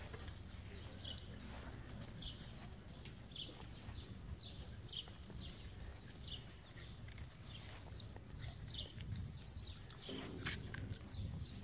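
A bird chirping over and over, short high chirps about one to two a second, against a low rumble of wind or handling noise.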